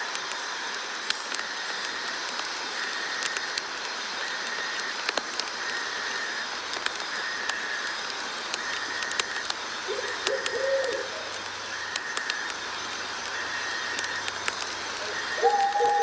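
Night nature ambience: a steady hiss with a chirping chorus that pulses about once a second, and a short bird call about ten seconds in. A louder bird call comes near the end.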